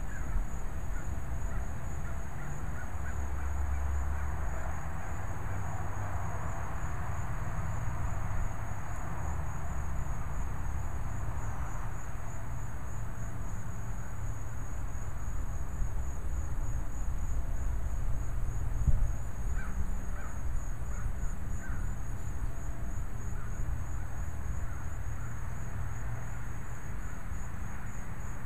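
Outdoor ambience: a low wind rumble on the microphone, a steady high insect chorus, and birds calling, with a few short calls about twenty seconds in.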